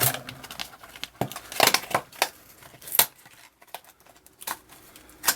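A taped Beyblade Burst toy box being opened by hand: tape tearing and packaging crinkling in short, irregular bursts.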